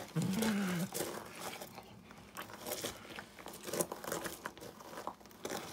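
A man handling and eating a snack: scattered crinkling and crunching. A short low voiced sound, rising and falling, comes in the first second.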